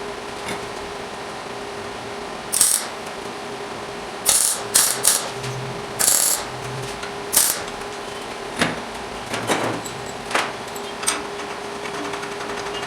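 Steel parts being handled and worked, giving a string of about a dozen sharp, irregular clanks and knocks, the loudest cluster in the first half, over a steady faint hum.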